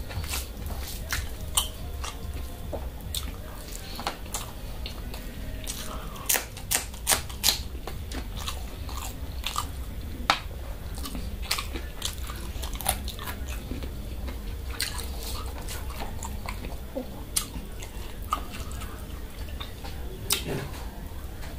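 A person chewing and eating a meal of mutton, egg and rice close to the microphone: irregular wet clicks and mouth smacks, over a steady low hum.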